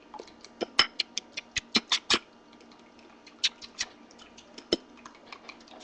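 A fork clicking against a bowl while beating raw eggs: a quick run of sharp, irregular taps in the first couple of seconds, then a few scattered ones.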